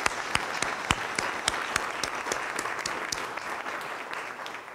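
Room of people applauding, with sharp single claps close to the microphone standing out over the crowd's clapping. The applause dies away near the end.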